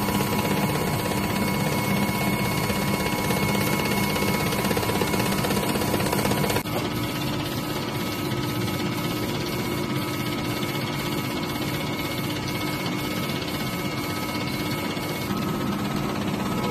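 Sublistar A3 Star IV DTF printer running: a steady mechanical whir and hum with a few constant tones, as its print-head carriage shuttles across the transfer film. The sound drops a little in level about six and a half seconds in.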